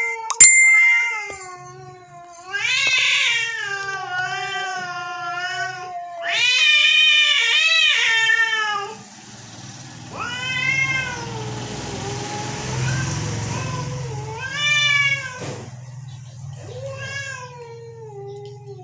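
A cat meowing in a series of long, drawn-out calls whose pitch wavers up and down, about five of them with pauses between. Just after the start there is a sharp metallic clank with a brief ring, and a faint low hum comes in about halfway through.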